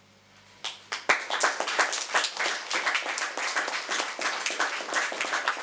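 Audience applauding after a song with acoustic guitar. The last guitar chord dies away, and the clapping starts suddenly under a second in and keeps up densely.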